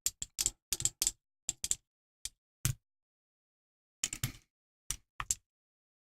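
Irregular small metallic clicks and taps from a pin-tumbler lock being handled and taken apart. They come in quick clusters over the first few seconds, with a pause, then a few more.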